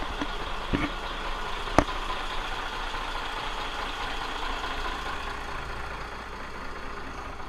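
Boat engines idling steadily. There is a soft knock just under a second in and a sharper, louder knock nearly two seconds in.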